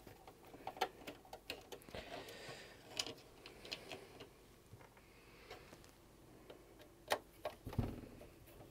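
Light, irregular clicks and taps of a screwdriver and fingers working at the plastic case of a Macintosh LC 630, with a soft thump near the end.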